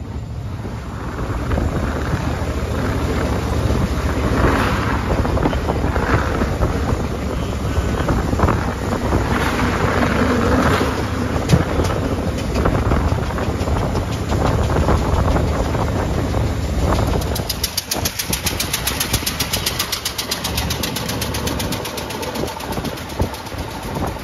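Veteran car running along a road: a steady engine and road rumble. About two-thirds of the way through, the engine's fast, even firing beat comes to the fore.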